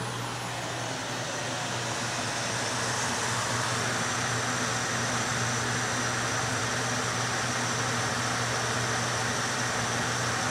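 Fan blowing air steadily through a foil dryer duct: a constant rush of air over a low steady hum.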